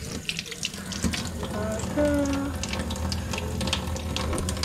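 Kitchen tap running into a stainless steel sink while fresh anchovies are cleaned by hand under the stream, with frequent small sharp clicks.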